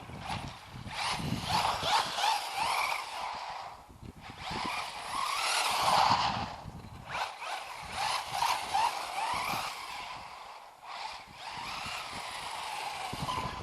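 FTX Vantage electric RC car's motor whining at high speed, its pitch wavering up and down as it accelerates and brakes through several passes, swelling loud and fading away again, loudest near the middle.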